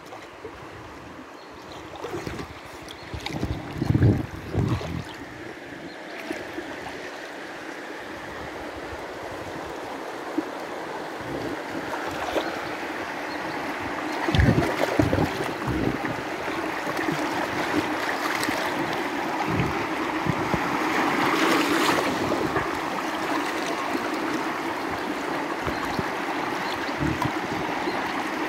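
Shallow river rapids rushing and splashing around an inner tube, the water noise slowly getting louder as the tube drifts into rougher whitewater. A few low thumps and splashes come a few seconds in and again about halfway.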